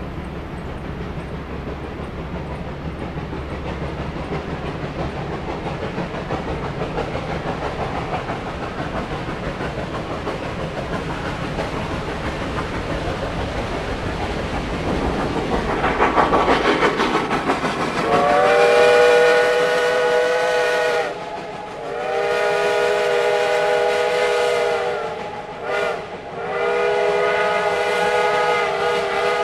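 Reading & Northern steam locomotive 425 approaching, its running noise growing louder, then its chord steam whistle blowing two long blasts, a short toot and another long blast: the long-long-short-long grade-crossing signal.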